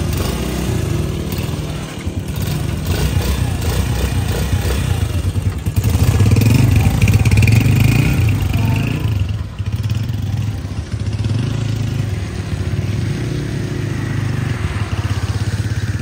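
Honda CD70's single-cylinder four-stroke engine running, freshly started, growing louder for a few seconds around the middle and then running steadily.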